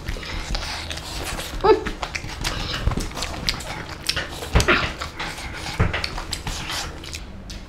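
Close-miked chewing and lip-smacking of people eating meat curry and rice with their hands: a steady run of wet clicks and smacks.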